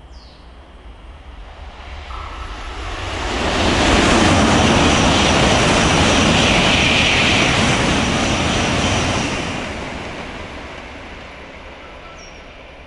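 Shinkansen bullet train passing through the station at speed without stopping. It is a rushing noise of wheels and air that swells over a couple of seconds, holds loud for about five seconds, then fades away.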